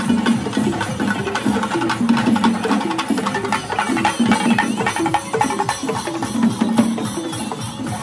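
Procession music: fast, continuous drumming with a stepping melody line over it.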